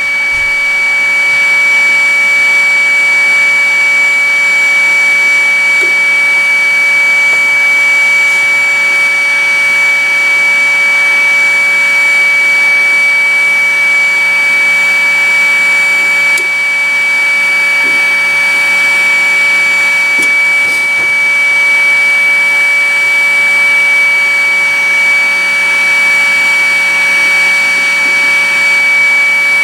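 A small electric blower runs steadily, giving an airy hiss and a constant high-pitched whine, as used for heating and fume handling during BGA solder rework.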